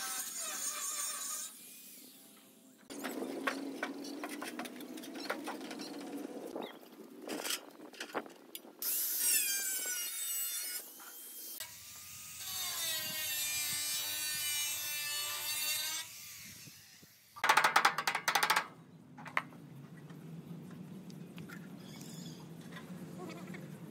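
Angle grinder with a cutting disc cutting sheet steel in several separate runs, its whine rising and falling in pitch as it spins up, bites into the metal and winds down. The loudest run is a short, harsh burst about three quarters of the way through, with quieter stretches between the cuts.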